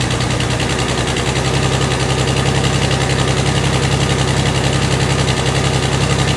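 Exhaust of a 1999 Toyota 4Runner's 3.4-litre V6 heard at the tailpipe, running loud and steady with a constant, steady misfire.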